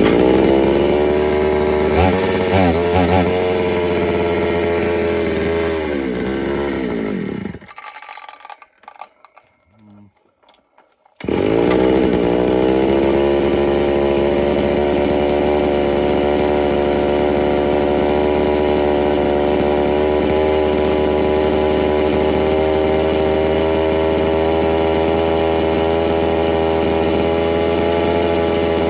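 Dayton 4Z251 (rebranded Poulan 3400) two-stroke chainsaw engine running, revving unevenly, then sagging in pitch and dying about seven seconds in. It is restarted about 11 seconds in, its pitch climbs quickly and then settles into a steady run. The owner takes its behaviour for the sign of an air leak.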